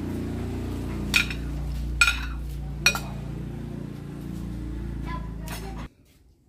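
Three sharp clinks about a second apart as a ceramic bowl knocks against the rim of a metal cooking pot while its contents are tipped in, over a steady low rumble from the boiling pot. The sound cuts off suddenly near the end.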